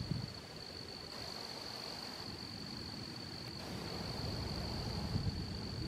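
Steady, unbroken high-pitched insect trill, over a faint low rumble that grows slightly toward the end.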